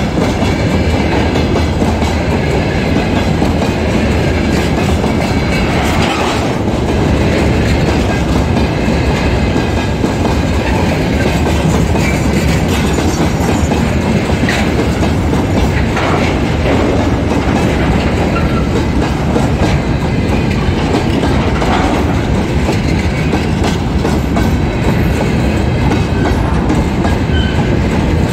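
Freight train of hopper wagons rolling past close by: a steady loud rumble, with the wheels clattering clickety-clack over the rail joints.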